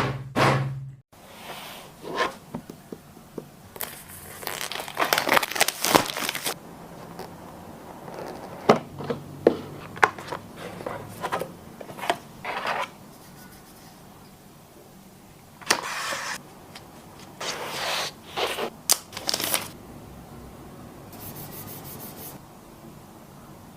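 Smartphone packaging being handled and opened: intermittent tearing, crinkling and rubbing of plastic film and cardboard, with scattered clicks and knocks.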